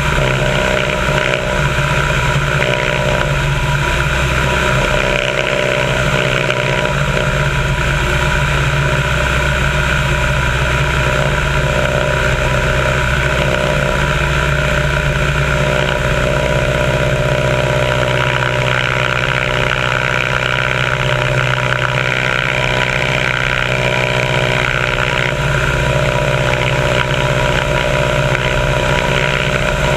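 A biplane's piston engine and propeller running steadily at cruise power in flight, with wind rushing over the wing-mounted microphone.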